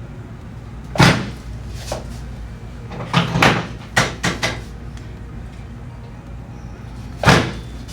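Chiropractic drop table knocking and clacking: about seven sharp knocks, the loudest about a second in and another near the end, with a quick cluster in the middle.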